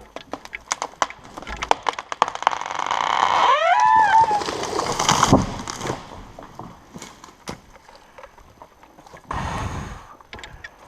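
A felled snag's hinge wood cracking and splintering in a quick run of sharp cracks as the tree goes over, then a rushing crash as it hits the ground about five seconds in. A short rising-and-falling cry sounds just before the crash.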